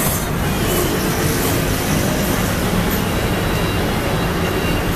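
Steady low rumble of road traffic, with no clear beat or separate events.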